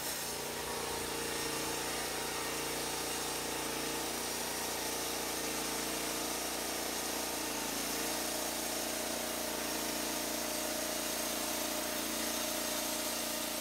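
Norwood LumberMate LM29 portable band sawmill running steadily under power, its motor and band blade giving a constant drone. The pitch sags briefly about halfway through.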